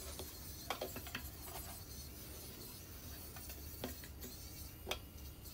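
Faint scrubbing of a stainless steel sink with a cleaning brush: a few short scraping strokes and light knocks against the metal, over the low hiss of the tap running into the basin.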